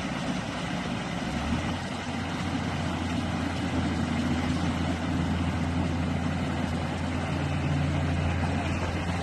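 Excavator's diesel engine running steadily. Its low hum grows louder about a second and a half in.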